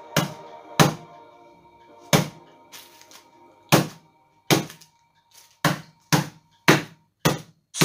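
About ten sharp, heavy knocks at uneven spacing, from half a second to a second and a half apart, made by hand work at the kitchen worktop. Faint music with a few held notes runs underneath.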